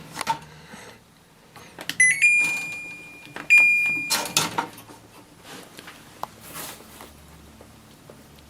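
Electronic beeps from an air conditioner's control panel as its buttons are pressed: a short chirp, then two longer beeps about two seconds in. Handling clicks and a louder knock come around them, over a faint low hum.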